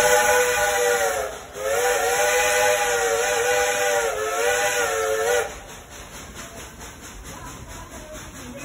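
Steam locomotive's chime whistle blowing two blasts, a short one and then a long one of about four seconds, several tones sounding together and sagging in pitch as each blast ends. After the whistle stops, the train's quieter running noise is left.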